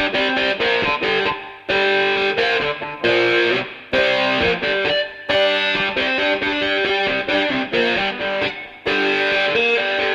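Music: a distorted electric guitar plays a riff alone, in phrases broken by several short pauses.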